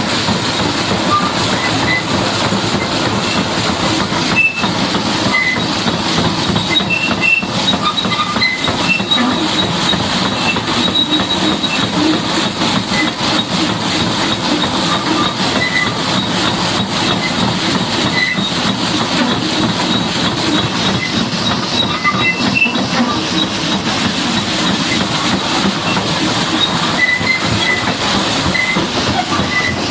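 High-pressure water jet spraying a Caterpillar D8R bulldozer, a steady loud rushing hiss with faint short high squeaks scattered through it.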